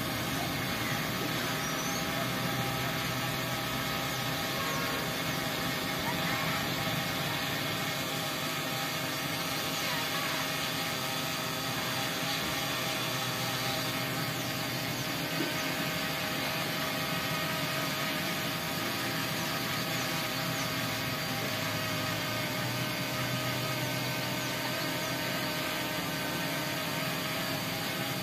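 Multirotor drone with 930 kV brushless motors and 1045 (10-inch) propellers in flight, its motors and props giving a steady whirr with several held tones that stays even throughout.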